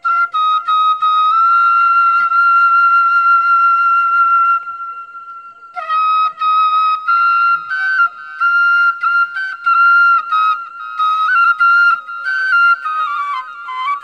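Background music: a solo flute melody. It holds one long note, fades briefly about five seconds in, then plays a phrase of shorter notes stepping up and down.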